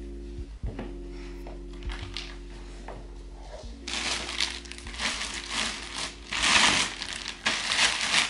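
Plastic bag crinkling and rustling as it is handled and packed into a suitcase. The rustling comes in a series of loud bursts from about four seconds in, over quiet background music.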